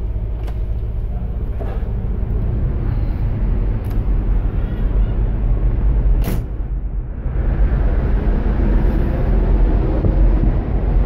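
Steady low rumble of a large container ship heard from its bridge. A sharp click comes about six seconds in, and soon after a loud rushing of wind on the microphone sets in over the rumble as the camera is out on the open bridge wing.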